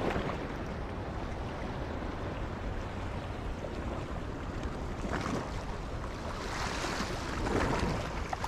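Sea waves washing over shore rocks, with wind buffeting the microphone. The wash swells louder briefly about five seconds in and again for a second or two near the end.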